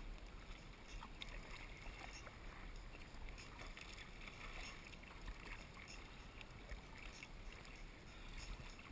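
Sea kayak paddle strokes: faint splashes and drips as the paddle blades dip into calm sea water, over a steady low hiss and rumble.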